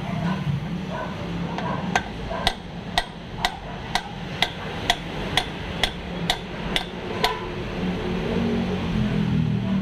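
A hammer striking a socket used as a driver to tap a pilot bearing into the centre of the flywheel, seating it a little at a time. About a dozen even metal-on-metal taps, about two a second, starting about two seconds in and stopping a couple of seconds before the end.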